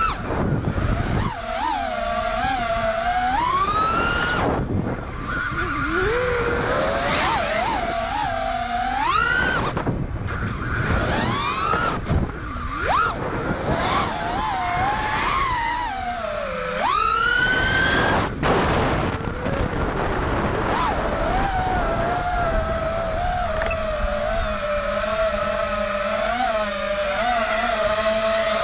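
4-inch FPV quadcopter's brushless motors whining, the pitch sweeping sharply up and down with throttle punches and dives, cutting out briefly a few times. In the last third it holds a steadier, wavering pitch.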